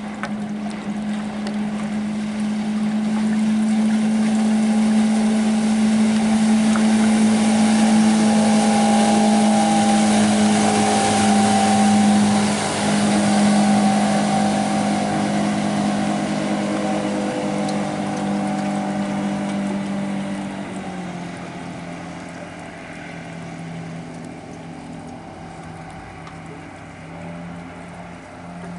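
Outboard motor on a Bennington pontoon boat running at steady speed as the boat passes. It grows louder over the first few seconds, is loudest around the middle, then fades away, its pitch dropping slightly as the boat moves off.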